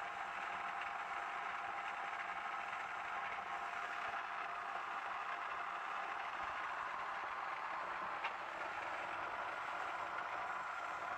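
Otsein Hoover OHNV175 tumble dryer running with a steady whining, rushing noise, the fault noise of a dryer in need of repair. A single click about eight seconds in.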